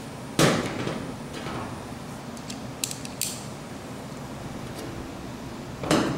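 Hands working on a washing machine's new drain hose and its plastic fitting: a sharp knock with a brief scrape about half a second in, a few light clicks around the middle, and another knock near the end.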